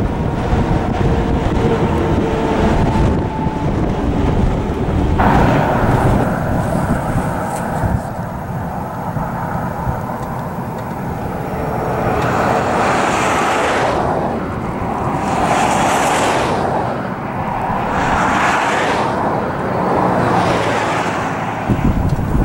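Highway traffic: cars and tractor-trailers going by on the road, with wind on the microphone. In the second half the sound swells and fades every two to three seconds.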